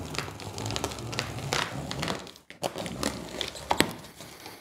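A large cardboard box being opened by hand, with the cardboard flap scraping and rustling and several sharp clicks and taps.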